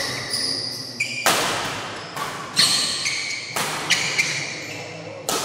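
Badminton doubles rally in a reverberant hall: rackets striking the shuttlecock four times, about a second apart, with short high squeaks of shoes on the court between the shots.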